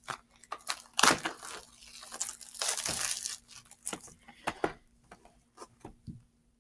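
Plastic wrapper of a Yu-Gi-Oh! trading-card booster pack being torn open and crinkled in the hands: a dense run of crackling rustles that thins to a few scattered crackles after about four seconds.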